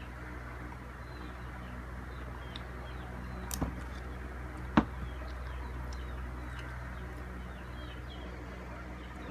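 Faint chirping of small birds over a steady low hum, with two sharp clicks a little past the middle, the second louder.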